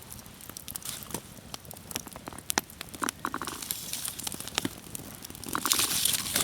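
Campfire crackling, with many scattered sharp pops and snaps.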